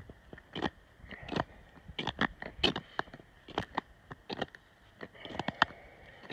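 Irregular sharp crackles and scrapes, a few a second, from a man crouched on the ice at a tip-up, hand-lining fishing line in through the hole.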